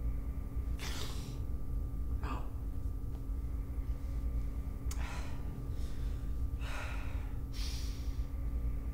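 A man's ragged breathing while crying: about five sharp gasping breaths and sniffs, over a steady low hum.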